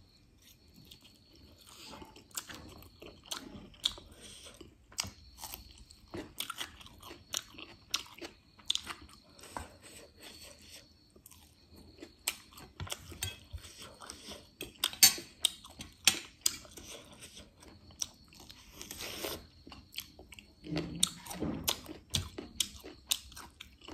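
Close-miked eating: a person chewing and biting a meal of spicy noodles and sausage, with many short, sharp crunches and clicks at an uneven pace.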